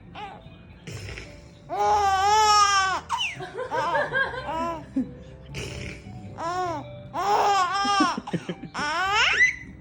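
A baby laughing hard in high-pitched squealing bouts: a long squeal about two seconds in, choppy laughter after it, and more squeals and laughs in the last few seconds.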